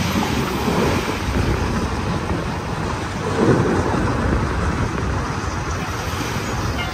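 A load of aggregate sliding out of a raised dump truck body: a steady rumbling hiss, with a stronger surge a little past halfway.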